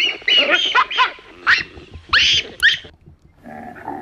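A troop of baboons calling: a quick run of about seven short, high, sharp calls that sweep upward, then the calling drops away to a quieter stretch near the end.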